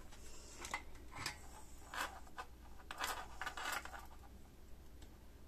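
Light clicks, scrapes and rustles of tools and a circuit board being handled on a workbench as the soldering iron is taken up, about half a dozen short knocks over the first four seconds.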